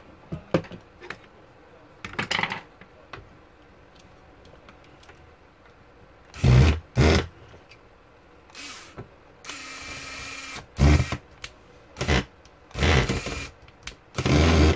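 Corded electric screwdriver running in short bursts as it drives the small screws of a laptop CPU fan and heatsink assembly, with handling clicks and knocks in the first few seconds.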